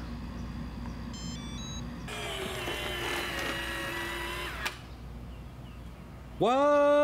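4moms Origami power-folding stroller giving a short chime of quick beeps, then its electric fold motor whining steadily for about two and a half seconds as the frame collapses, stopping with a click. Near the end a man exclaims a loud, drawn-out "what?".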